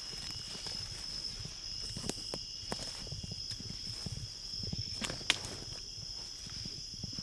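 Footsteps of people walking through undergrowth while tracking, with scattered clicks and snaps, the sharpest about five seconds in, over a steady high-pitched chirring of crickets.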